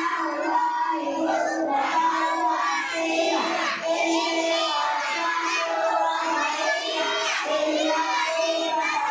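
A group of young children chanting together in unison, a sing-song recitation with long held notes.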